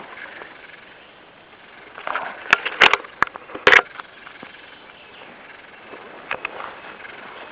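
Dry twigs cracking underfoot on the forest floor: a quick cluster of sharp snaps about two and a half to four seconds in, then a couple of fainter clicks near the end.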